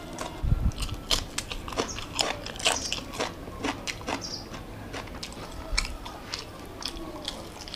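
Close-miked chewing and biting of food, a quick run of short crisp crunches: rice and chicken eaten by hand, along with a raw green pepper.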